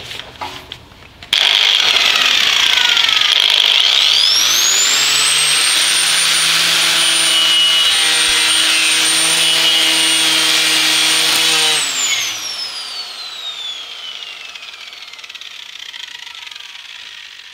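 Angle grinder with a knotted wire wheel scouring rust off the steel radiator frame. It is loud from about a second in, with the motor's high whine climbing to full speed a few seconds later and holding steady. About twelve seconds in it is switched off, and the whine falls away slowly as the wheel spins down.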